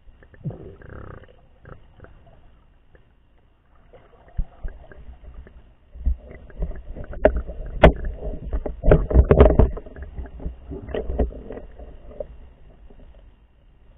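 Muffled underwater sound of water sloshing and rushing around a submerged camera as the swimmer moves it: uneven low rumbling surges with sharp clicks, picking up strongly about six seconds in and easing again near the end.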